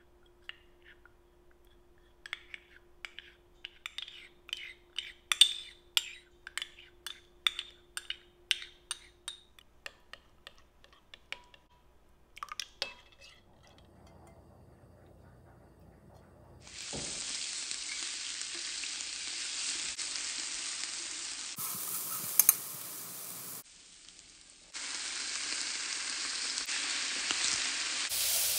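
A spoon clinks against a glass bowl at about two or three taps a second while stirring a sauce. Later, oil sizzles steadily in a frying pan as seafood and garlic are stir-fried, with one loud clack of the spatula against the pan.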